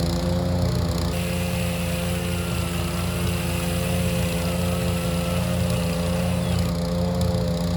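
Small petrol-engined wood chipper running at a steady speed, with a higher hiss rising over it about a second in and dropping away near the end.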